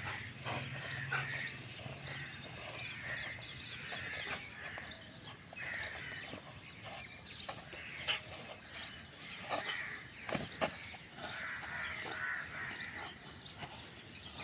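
Birds calling and chattering in the trees: many short calls overlapping and repeating throughout. A few sharp clicks cut through, the loudest about ten seconds in.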